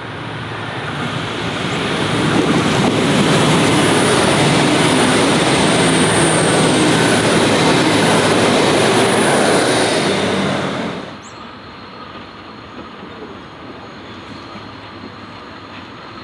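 V/Line VLocity passenger train passing at speed: a loud rush of wheel and engine noise that builds over the first couple of seconds and holds, then cuts off abruptly about eleven seconds in, leaving a much quieter background.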